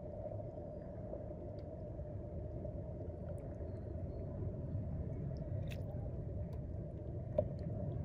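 Steady low rumble of outdoor background noise, with a few faint ticks and one short sharp click near the end.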